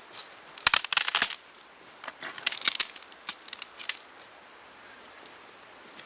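Dry wood cracking and snapping in two bursts of sharp crackles, one about half a second in and a longer one from about two to four seconds in.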